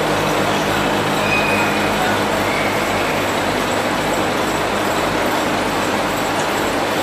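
Cotton carding machines running together: a loud, steady mechanical drone with a low hum underneath.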